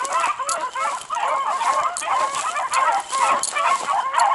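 A pack of beagles baying together in full cry on a track, many voices overlapping without a break.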